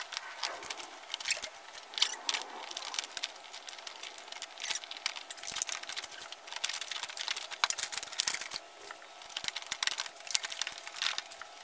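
Car wiring loom being fed through the bulkhead grommet by hand: a continuous run of plastic rustling, rubbing and small clicks from the taped wires and plug connectors.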